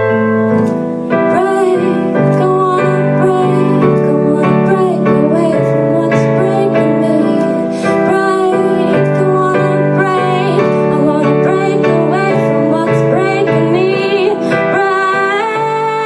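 Woman singing to her own electronic keyboard accompaniment, which plays held piano-sound chords. Her voice comes in about a second in and carries the melody over the chords.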